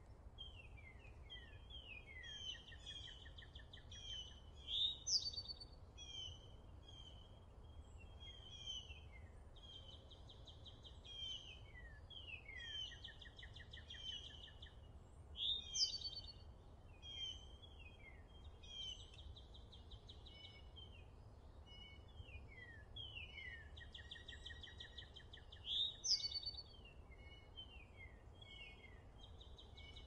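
Small songbirds chirping and twittering: rapid downward-sweeping notes and trills, with a sharper, louder call standing out three times, over a faint steady low rumble.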